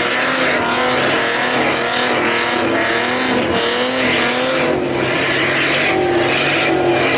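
Vehicle engine held at high revs during donuts, its pitch rising and falling slightly, with tires squealing and skidding on the pavement.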